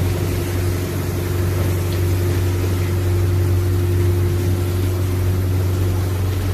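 Boat engine running steadily: a low, even drone with a fainter higher hum above it.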